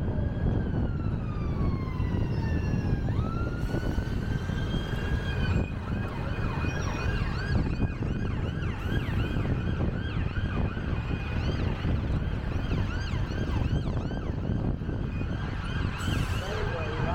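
Emergency vehicle siren sounding on a city street. It starts as a slow wail, falling and then rising in pitch, and about six seconds in it switches to a fast yelp of quickly repeated rises and falls. Underneath is a steady low rumble of traffic and wind noise.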